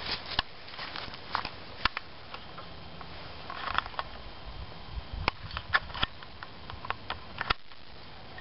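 Handling noise from a handheld camera: rustling and scraping with many sharp clicks and knocks scattered irregularly throughout.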